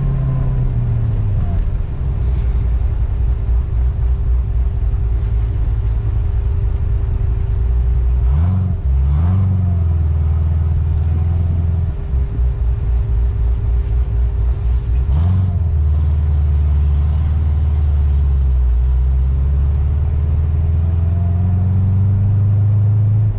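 Supercharged 6.2-litre LT4 V8 of a modified 2016 Corvette Z06 heard from inside the cabin while driving slowly: a loud, choppy low rumble, with the revs rising and falling briefly about 8, 9 and 15 seconds in and a steady hum above it.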